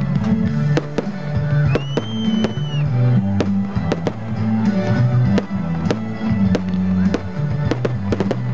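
Music with held bass notes playing over aerial firework shells bursting, their sharp cracks coming irregularly throughout. A short whistle rises, holds and falls about two seconds in.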